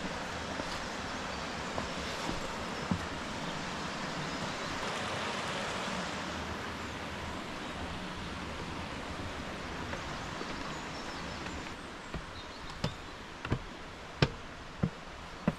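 Steady rushing of a stream running through a rocky gorge. Near the end, footsteps knock on wooden steps about every two-thirds of a second.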